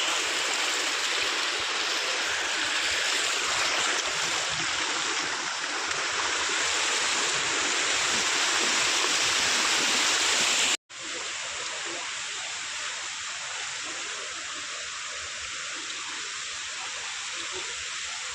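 Floodwater rushing steadily. The sound cuts out for an instant about eleven seconds in, then carries on a little quieter.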